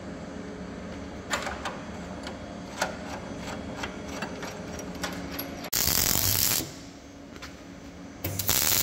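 Workshop machinery running with a steady hum and scattered light clicks, broken twice by a loud hiss about a second long, once past halfway and again near the end.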